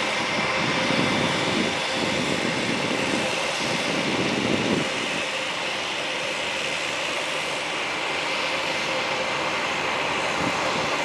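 Jet engines of a Boeing 737 on final approach: a steady rush of engine noise with a faint high whine, and some low rumbling in the first five seconds.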